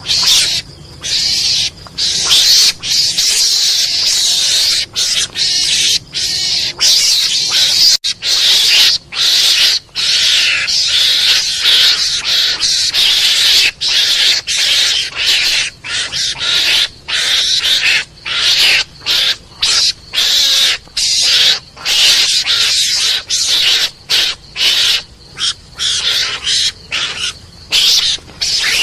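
Mongoose (garangan) calls played as a hunting lure: a rapid, scratchy, high-pitched chatter of short cries broken by brief gaps, going on without a pause.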